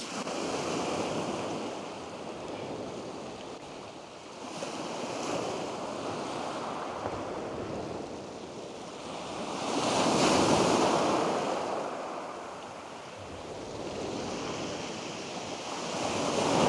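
Sea waves breaking and washing up a shingle beach. They swell and fade every few seconds, the biggest about ten seconds in.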